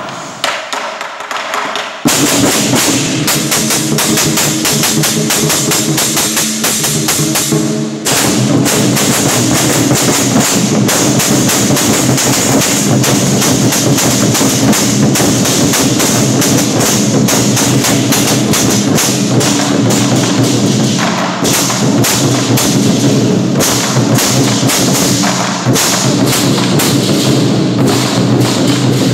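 An ensemble of large barrel drums beaten with sticks in a fast, dense lion-dance drumming rhythm. It is quieter at first, comes in at full strength about two seconds in, and gets heavier in the low end about eight seconds in.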